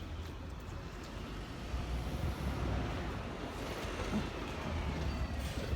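Road traffic: vehicles running with a steady low rumble, and a faint high whine slowly falling in pitch through the middle.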